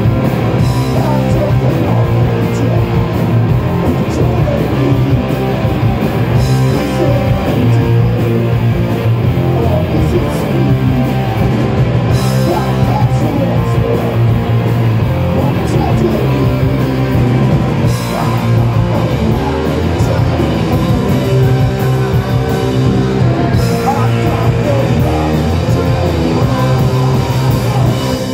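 Rock band playing live and loud: distorted electric guitar and drum kit, with sung vocals.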